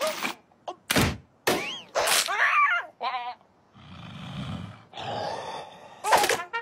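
Cartoon crocodile's groaning vocal sounds with sound-effect hits: a sharp hit about a second in, rising and falling groans, a short rapid warble, then a low rumbling whoosh and another hit near the end.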